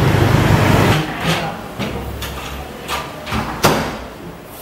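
A low rumble for about the first second, then a string of sharp knocks and clicks roughly every half second: footsteps and bumps on a wooden floor and staircase.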